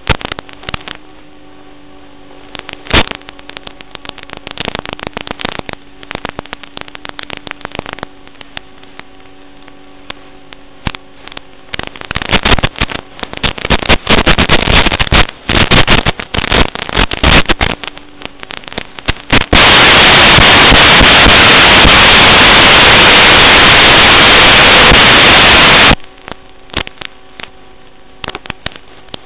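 Static from an analog FPV video link: a steady electrical hum with crackling and popping that grows denser, then a loud, even hiss of full static for several seconds from about two-thirds of the way in, dropping back suddenly to hum and crackle near the end.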